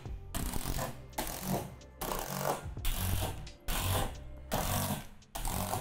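Cordless drill driving screws through the gussets into the shed's metal roof trusses, running on its highest torque setting in a series of short bursts about once a second.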